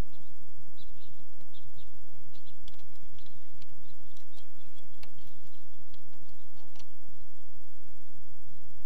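Light, scattered clicks and ticks of small metal hardware being fiddled with by hand as a nut is worked off a kayak rudder-cable fitting, over a steady low rumble.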